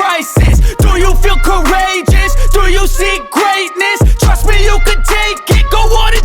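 Background hip hop music with deep bass.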